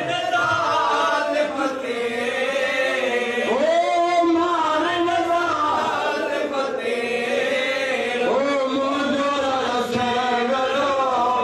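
Several men's voices chanting together in a slow, melodic mourning recitation, with long held notes that bend up and down.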